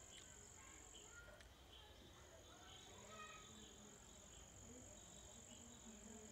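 Faint steady high-pitched insect drone that breaks off for about a second near the start, then carries on over quiet background.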